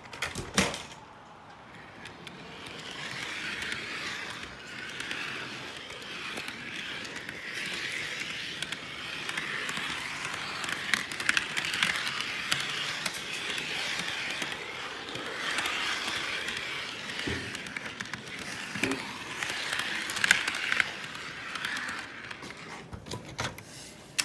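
Model train wheels rolling along the layout's track: a steady rolling rattle with scattered small clicks, and a few louder knocks near the end.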